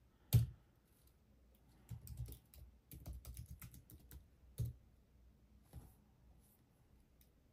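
Keys struck on a computer keyboard. One sharp keystroke comes about half a second in, then a quick run of keystrokes from about two to four and a half seconds, typing a passphrase at a terminal prompt, and a couple of single keys after.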